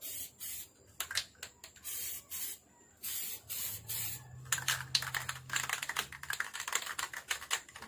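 Aerosol spray paint can hissing in short bursts of about half a second, then the can being shaken, its mixing ball rattling rapidly for the last few seconds.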